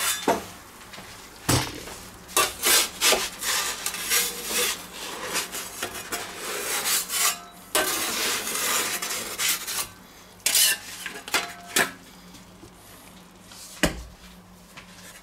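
Two-piece metal pizza peel scraping and clinking against the stone of an electric pizza oven as the pizza is turned, with a longer scrape a little past halfway. A dull thump near the end as the oven's lid is shut.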